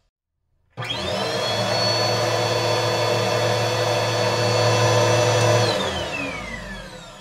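Stick vacuum cleaner switched on about a second in, its motor whine rising and settling into a steady run. Near the end it is switched off and the motor winds down with a falling whine.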